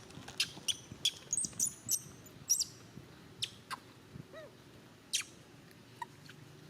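Short, high-pitched animal squeaks and chirps, many in quick succession over the first three seconds, then scattered ones with a few small rising-and-falling calls.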